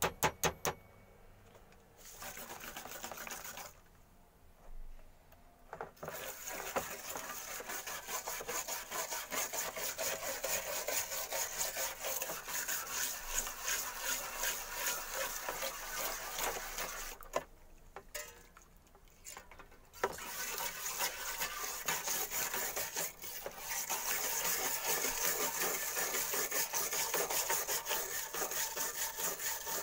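Steel wire brush scrubbing a steel shovel blade under liquid in a plastic basin, scouring off rust in fast back-and-forth strokes with a wet, gritty rasp. A few sharp clicks open it, and the scrubbing pauses for a few seconds about two-thirds of the way through.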